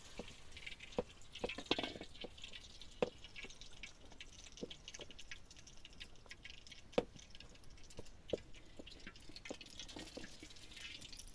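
Irregular light clicks and taps of utensils on dishes during a meal, a few sharper knocks among them.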